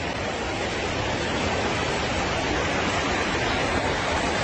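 Steady rushing of fast-flowing river water, an even noise with no distinct events.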